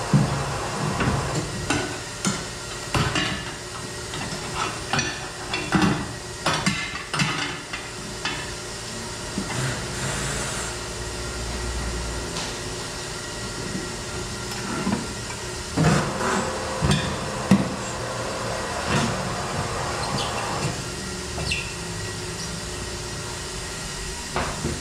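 John Bean tyre changer working a tyre off an aluminium alloy rim: the machine hums steadily as the turntable turns, with irregular knocks and clanks as the mounting head and tyre lever strike the rim and bead.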